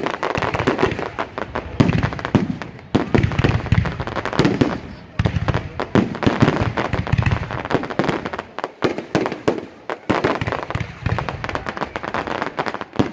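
Fireworks display: shells bursting in a dense barrage, many sharp bangs in quick succession with hardly a pause.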